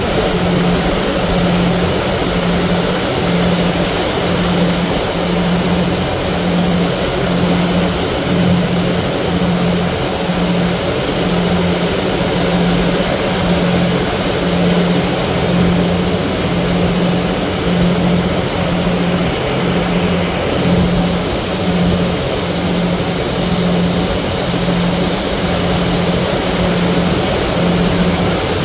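Ferry's engine running steadily under way, a low hum that throbs about once a second, over a constant rush of wind and water.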